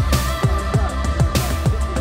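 Electronic background music with a steady beat of deep kick drums, about three a second, over a sustained bass.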